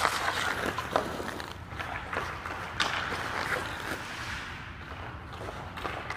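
Hockey skates scraping and carving on rink ice as a skater turns and pushes off, with a few sharp clicks from the stick and puck.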